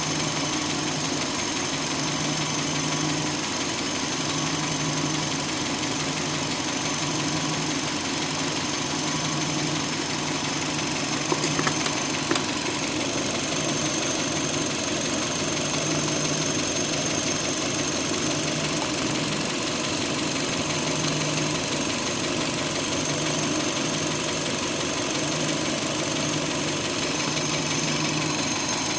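2005 Hyundai Elantra's four-cylinder engine idling steadily, with a thin high whine over it and a low hum that swells and fades every second or two. A few sharp clicks come about eleven seconds in. This is the running noise the owner has been hearing since he tightened the timing belt; he does not know its cause.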